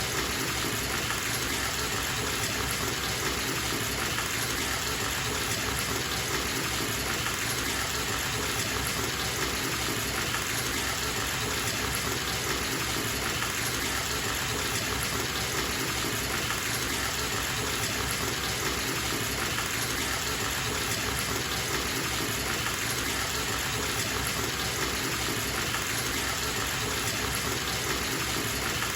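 Water running from a bathtub tap and splashing into the tub as it fills, a steady even rush with no changes.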